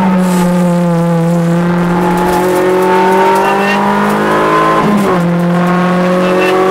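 Rally car engine heard from inside the cabin, pulling hard at high revs, the note climbing slowly, with a brief break at the start and another about five seconds in as it changes gear.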